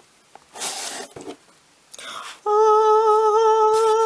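Cardboard box flaps rustling and sliding twice as the box is handled, then a woman hums one held, slightly wavering note for nearly two seconds, starting about two and a half seconds in; the hum is the loudest sound.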